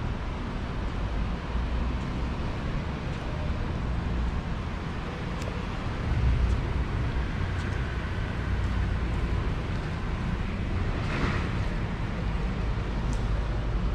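Outdoor city street ambience: a steady low rumble and hiss, with a few faint ticks and a brief louder hiss near the end.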